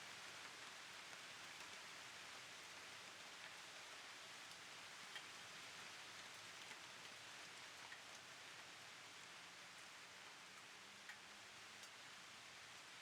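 Faint steady rain, an even hiss with a few sharp single drops ticking now and then.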